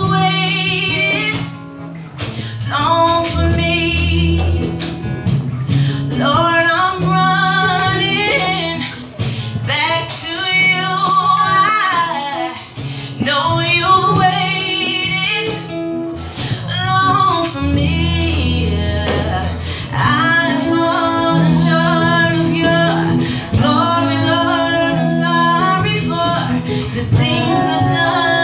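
A woman singing a gospel song into a microphone, in long phrases with short breaks, over instrumental accompaniment with sustained bass notes.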